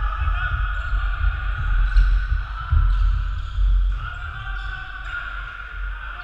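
Players' footsteps thumping on a wooden sports-hall floor, with indistinct voices in the large hall.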